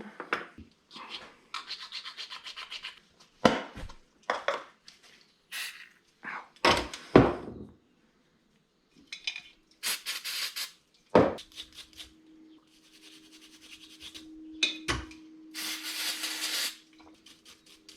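Workbench handling noises: scattered knocks and clunks of tools and a small part being picked up and set down, between stretches of rubbing and scraping.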